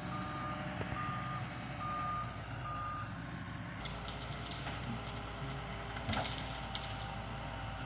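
Doosan DX140 excavator running with a steady engine rumble, its alarm beeping four times, about once a second, and then stopping. From about four seconds in, a scatter of sharp cracks and crackles joins the engine sound.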